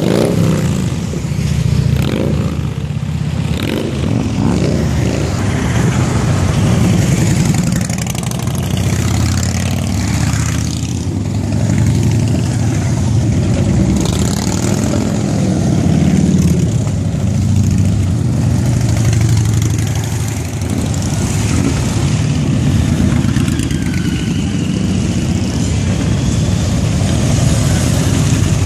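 A steady stream of motorcycles, mostly heavy touring and cruiser bikes, riding past one after another close by, the engine noise swelling and dipping as each group goes by.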